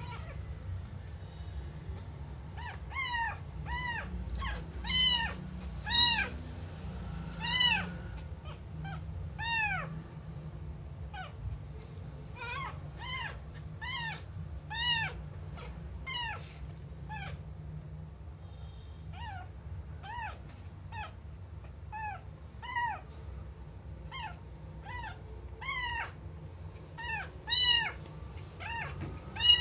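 A small kitten mewing over and over: short, high mews that rise and fall in pitch, one or two a second, starting a couple of seconds in, a few of them louder than the rest.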